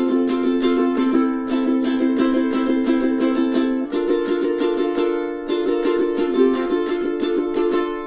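All-solid acacia Snail S20T tenor ukulele playing chords in a steady, quick rhythm, the chord changing a couple of times.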